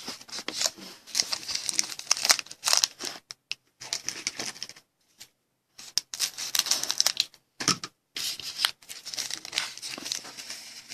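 Foil trading-card pack wrapper being torn open and crinkled by hand, in irregular bursts with a couple of short pauses.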